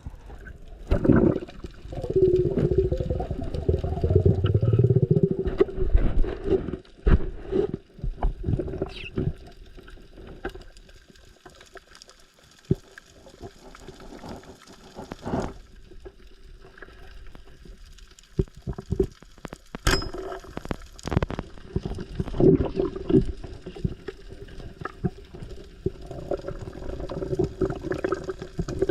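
Water sloshing and gurgling, likely heard underwater, with irregular surges, scattered knocks and clicks, and a faint steady hum underneath.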